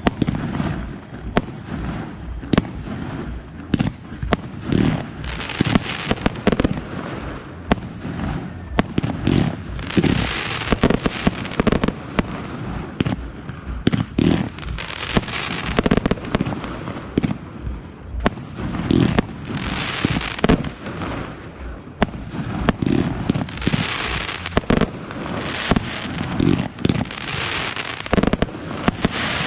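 Fireworks display: shells bursting one after another with sharp bangs, many followed by a second or two of crackling.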